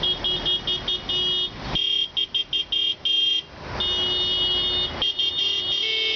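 Several car horns honking together in protest, in quick bursts of short beeps and longer blasts at more than one pitch, with a brief break a little past halfway.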